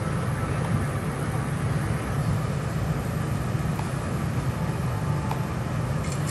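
Halved lobsters sizzling on a steel teppanyaki griddle over a steady low rumble, with a few light clicks near the end.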